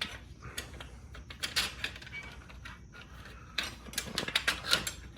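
Irregular light clicks, taps and scraping of small parts and tools being handled while hole positions are marked out, busiest in the second half.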